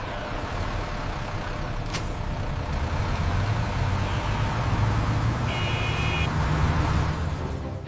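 Vehicle driving sound effect for a bus on the road: a steady low engine rumble with road and traffic noise. There is a sharp click about two seconds in and a short high beep about five and a half seconds in.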